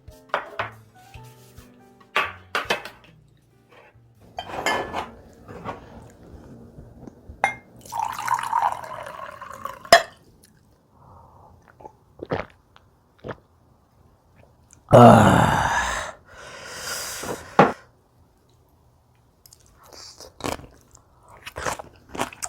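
Dishes and utensils clinking and being handled at the table in a string of short clicks and knocks. Longer, louder handling sounds come about a third of the way in and again, loudest, about two-thirds in.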